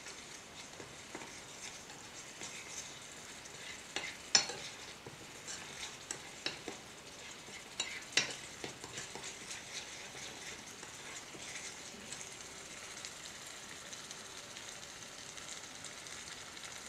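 Curry gravy sizzling in a tiny steel frying pan while a small spoon stirs it, with scattered sharp clinks of the spoon against the pan, the loudest two about four and eight seconds in.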